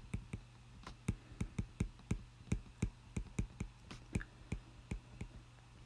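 Light, irregular clicks and taps from writing out notes, about three to four a second, over a faint low steady hum; the tapping stops shortly before the end.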